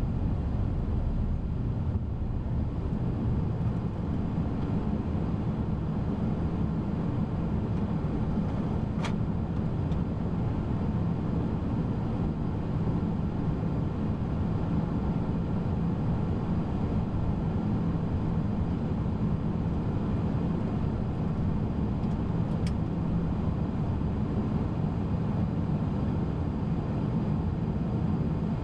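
Airbus A340-600 flight-deck noise while taxiing after landing: a steady low rumble of the idling engines and air conditioning, with two brief clicks about 9 seconds and 23 seconds in.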